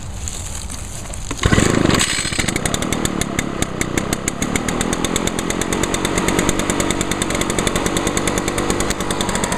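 Echo PB-500T backpack blower's two-stroke engine cold-started on choke after priming: one pull of the recoil starter about a second and a half in, and the engine catches at once and runs steadily.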